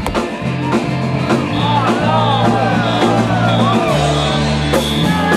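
Live rock band playing between sung lines: held bass notes that change every second or so, drums, and melodic lines that bend up and down.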